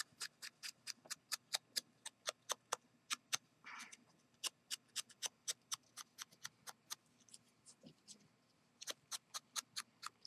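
A small sponge dabbing ink onto punched cardstock pieces: a quick run of light, sharp taps about four or five a second, with a brief pause about two-thirds of the way through.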